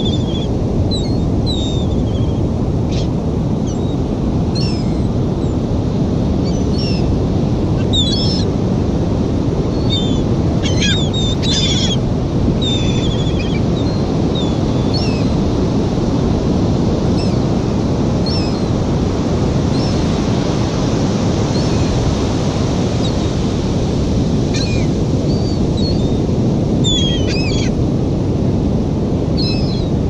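A flock of gulls calling overhead, short high calls every second or two with a cluster of louder ones about a third of the way in, over a steady rush of surf and wind.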